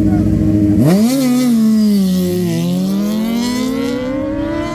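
Drag-racing motorcycle engine held at steady revs, then launched: about a second in the revs jump sharply, sag briefly, and then climb steadily as the bike accelerates away.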